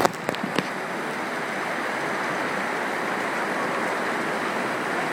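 Mountain valley stream rushing steadily, with a few light knocks in the first half second.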